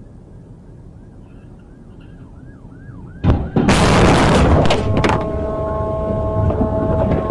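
Head-on car collision: a faint siren yelping quickly, then about three seconds in a sudden loud impact with over a second of crunching and scraping debris. A steady tone follows and holds to the end.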